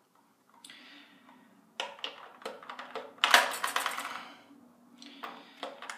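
Batteries being fitted into a handheld RC transmitter's battery compartment: a series of small hard clicks and clinks, the loudest a little past halfway.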